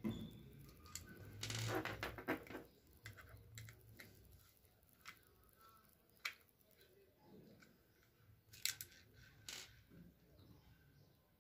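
Small screwdriver prying and scraping at the seam of an electric blanket's plastic hand controller: faint scattered scrapes and clicks, a busier run of scraping about two seconds in, then a few sharp separate clicks later on as the snap-fit shell is worked apart.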